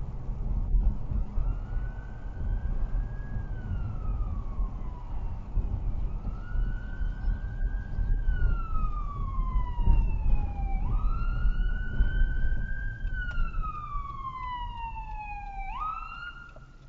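Ambulance siren on a slow wail: each cycle rises quickly, then falls slowly over several seconds, and it grows louder as the ambulance approaches. Underneath is the low road and engine rumble of the dash-cam car, heard from inside the car, which drops off near the end.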